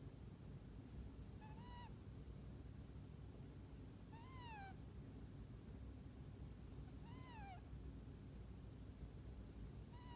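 Sleeping kitten snoring: a short, high, squeaky whistle on each breath that rises and then falls in pitch, four times about three seconds apart.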